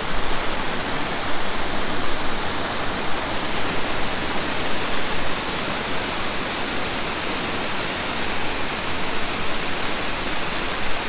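Waterfall rushing: a loud, steady wash of falling water that never lets up.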